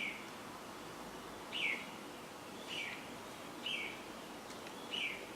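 A bird chirping repeatedly: short, high, falling chirps, about one every second or so.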